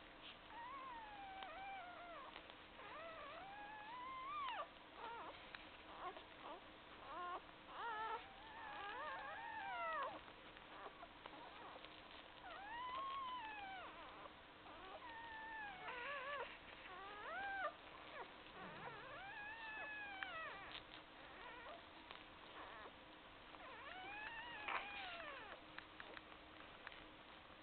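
Newborn puppies squeaking and whining while they nurse: thin, high cries that rise and fall, coming every second or two at irregular intervals.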